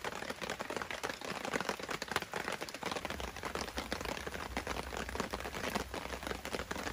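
Dense, irregular small ticks and pops: rain pattering around a wood fire crackling in an open fire pit.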